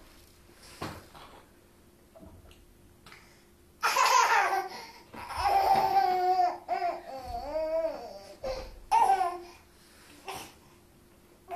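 A toddler boy laughing in bursts, with babbling in between. The longest, loudest stretch of laughter comes about four seconds in, with another short burst about nine seconds in.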